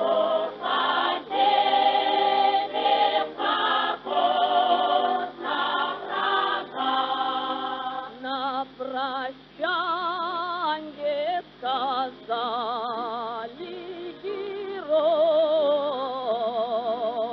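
Background music: a choir singing, a series of held notes that waver in pitch, with short breaks between phrases.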